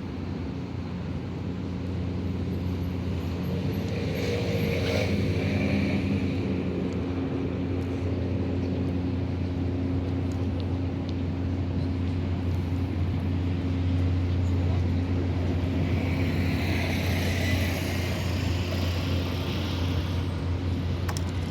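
A steady low engine drone with a constant hum, swelling slightly about two seconds in. A brief rushing hiss comes about four seconds in and a longer one near the end.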